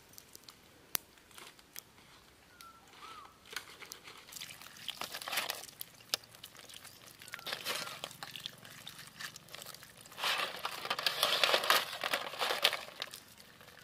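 Live crabs being washed and handled by hand: scattered clicks and crackling of shells and legs, with a louder stretch of rubbing, rustling noise near the end.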